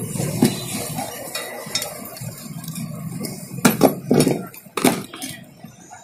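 Metal parts of a washing machine spin motor being handled: light clinking, then four or so sharp metal knocks a little past halfway.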